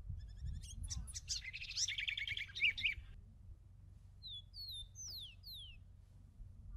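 Small birds calling: a rapid twittering trill for about three seconds, then a few short, quick whistles that slide downward in pitch, over a low steady rumble.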